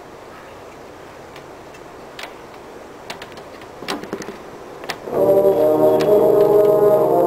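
Drum corps brass line entering together about five seconds in with a loud, sustained chord, after a few seconds of low background with a few faint knocks.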